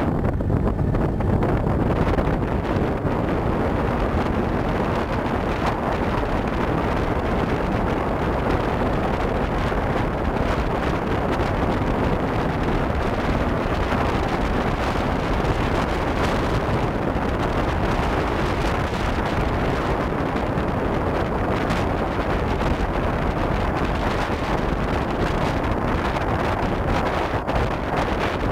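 Steady wind rush on the microphone of a camera mounted on a jeep driving across a flat sandy beach, mixed with the vehicle's running noise.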